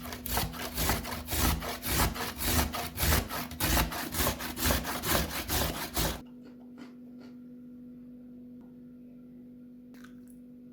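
Raw vegetables being rubbed against a hand grater in quick, even rasping strokes, about three a second. The grating stops about six seconds in, leaving a faint steady hum.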